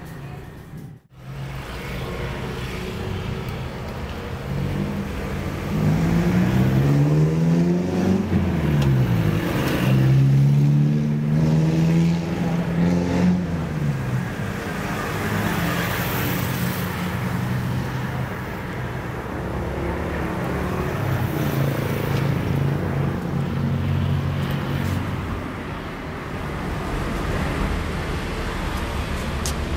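Road traffic: a steady hum of motor vehicles, with engines passing whose pitch rises and falls for several seconds in the middle.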